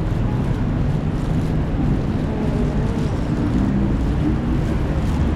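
Steady low rumble of city street traffic, mixed with wind buffeting the microphone.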